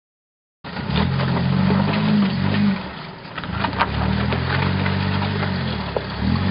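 1997 Jeep Wrangler TJ, locked front and rear, crawling up a rocky trail, its engine revving up and easing off under load with a brief let-off about halfway. Scattered knocks and clicks come in over the engine. The sound starts just over half a second in.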